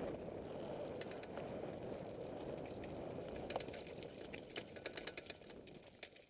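Mountain bike descending loose gravel, then rock slabs: a rough rolling noise that fades, then a quick run of clicks and rattles from the bike jolting over the rock, thickest about four to five and a half seconds in.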